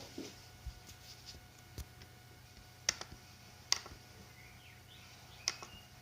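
A few scattered sharp clicks, the loudest three about three, four and five and a half seconds in, over a faint steady electronic hum.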